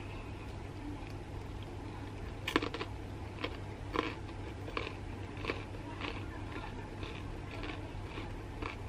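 Close-up chewing of crisp, crunchy food: sharp crunches begin about two and a half seconds in, the first the loudest, then come roughly once or twice a second.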